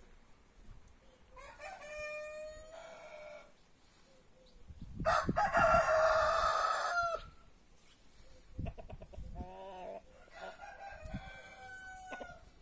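Roosters crowing three times, each a long held call, the middle crow much louder and closer than the others; between the second and third crows a chicken gives a run of short clucking calls.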